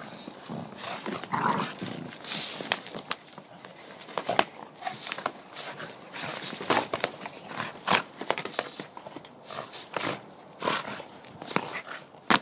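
Two dogs, a blue Staffordshire bull terrier and a brindle, mauling a plush toy tiger: a busy, irregular run of sharp scratches and clicks as they bite and tug at it.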